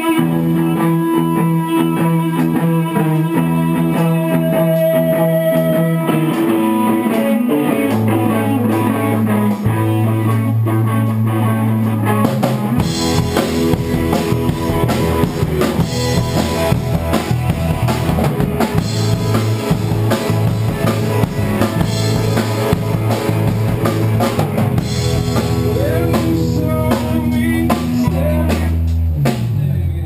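Rock band playing live: drum kit, electric guitar and bass guitar, with a steady bass line moving between held notes. The music stops abruptly near the end.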